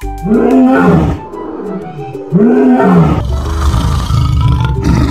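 Lion roaring: two loud calls that rise and fall in pitch, then a long, low, rough rumbling growl from about three seconds in.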